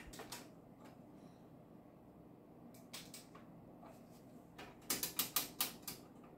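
Detented rotary volts-per-division switch on a Tektronix 7603 oscilloscope's vertical plug-in being turned, giving a quick run of about half a dozen clicks about five seconds in. There is a single click at the start and another about three seconds in.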